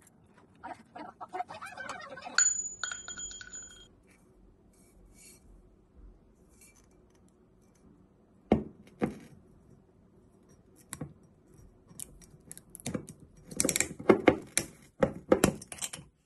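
Light clinks of tableware, then a sharp clink that rings on for about a second and a half. Later a glass bottle of apple cider vinegar is set down twice on a stone countertop, and near the end its metal screw cap clicks and scrapes as it is twisted open.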